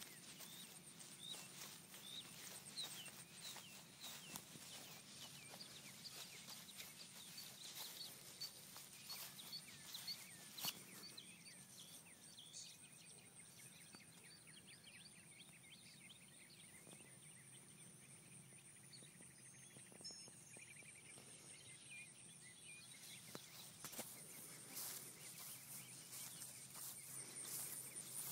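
Faint outdoor ambience: small birds chirping in short calls, mostly in the first ten seconds, over a steady high-pitched insect drone, with scattered rustles and clicks and one sharper click about ten seconds in.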